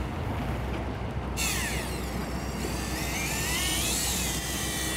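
Shimano ForceMaster electric fishing reel winding in a hooked fish: its motor starts whining suddenly about a second and a half in, the pitch sliding up and down as the fish's pull changes the load. A steady low hum from the boat runs underneath.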